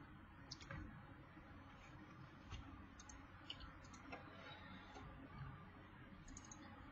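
Near silence: room tone with a handful of faint, brief computer mouse clicks scattered through it.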